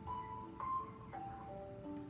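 Telephone hold music from the DJI support line: a slow tune of single held notes stepping up and down in pitch.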